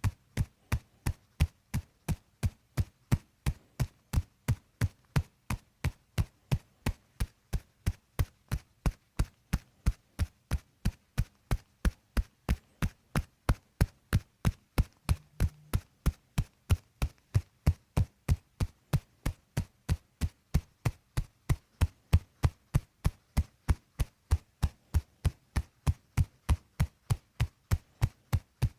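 Percussive massage tapping on the body: a steady, even run of sharp taps, about three a second, keeping the same pace throughout.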